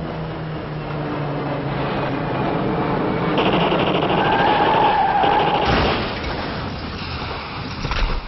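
Aircraft engine drone swelling as a plane dives low, with a rapid rattle at its loudest, then falling away; a sudden sharp burst near the end.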